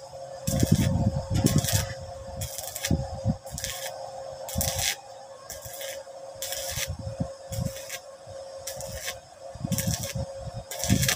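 Stick-welding arc from a Laddermann MMA-300A mini inverter welder, crackling in short hissing bursts about once a second as the electrode is struck and held on the steel.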